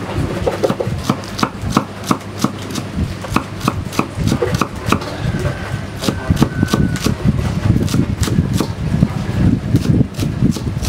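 Large kitchen knife chopping spring onions on a round wooden chopping board: quick, uneven knife strikes on the wood, several a second.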